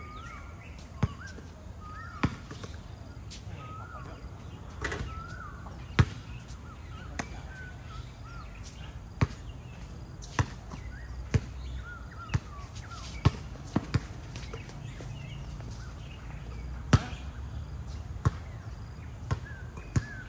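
Basketballs bouncing on a hard court: sharp, single thuds at irregular gaps of roughly one to two seconds, not a steady dribble. Short, high chirps are heard between the bounces.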